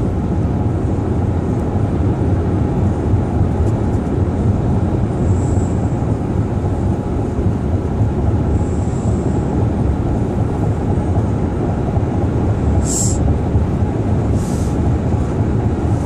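Steady road and engine rumble inside a moving car's cabin, with a short high hiss about thirteen seconds in.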